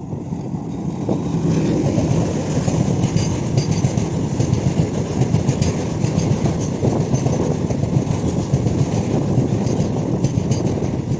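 Train passing close by at speed: a loud steady rumble of the coaches with wheels clicking over the rail joints, building up just after the start and then holding.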